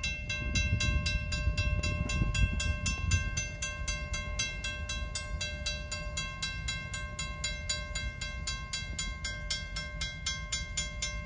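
Railroad grade-crossing warning bell ringing at a steady pace of about four strikes a second while the gates lift, then cutting off abruptly at the end. Under it, a low rumble eases after about three seconds.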